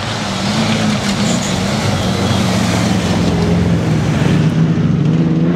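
An off-road competition 4x4's engine running under load as it drives up a dirt track and passes close by, growing steadily louder.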